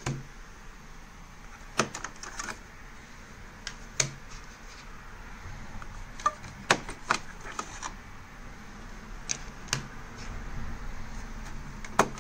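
Ink cartridges being pulled out of a Brother MFC-J6930DW inkjet printer's cartridge bay and set down: about ten sharp plastic clicks and clacks at uneven intervals.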